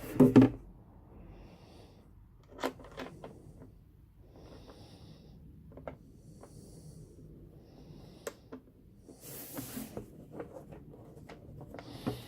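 Handling noise of a plastic fuel tank and its fittings being worked by hand: scattered clicks and knocks with low rubbing, a louder knock right at the start and a brief rustling scrape about nine seconds in.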